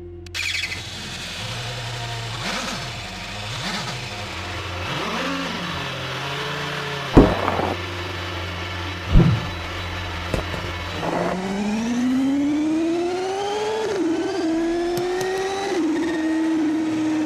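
Motorcycle engine revving up from about eleven seconds in, its pitch climbing for a few seconds and then holding high. Before it there is a steady low hum, with two loud thumps about seven and nine seconds in.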